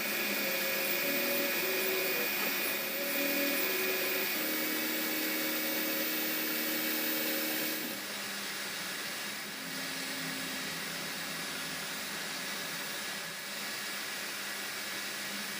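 Zeepro Zim 3D printer running, its stepper motors whining at pitches that step up and down as the head moves, over a steady fan whir. About eight seconds in, the stepping tones mostly stop and the whir carries on a little quieter.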